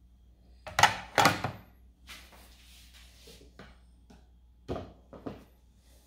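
Tableware being set down on a table: two loud knocks about a second in, then a few lighter knocks near the end, over a faint low hum.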